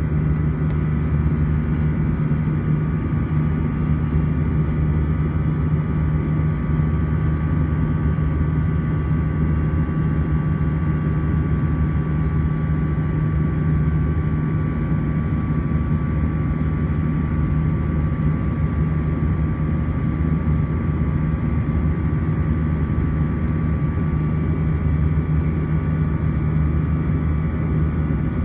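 Airbus A320's turbofan engines during the climb after takeoff, heard inside the cabin over the wing: a steady deep drone with a thin, steady high whine on top.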